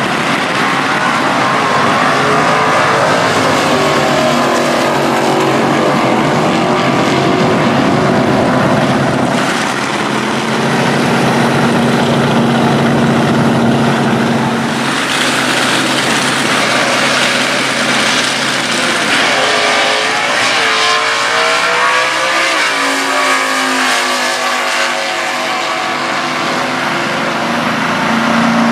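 Stock Eliminator drag race car engines running loudly. The revs are held fairly steady at first, then the pitch swings up and down several times in the second half.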